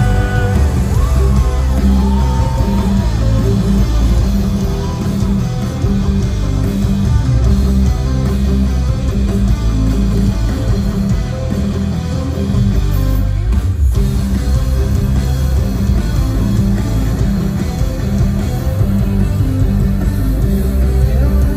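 Live rock band playing loud, with electric guitars, bass and drums keeping a steady beat.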